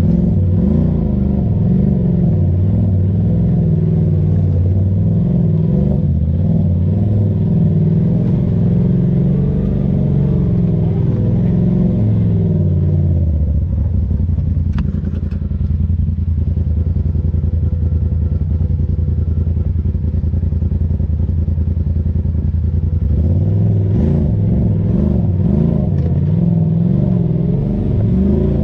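Side-by-side UTV engine working hard, its revs rising and falling again and again, settling into a steady run a little under halfway through, then revving up and down again for the last few seconds.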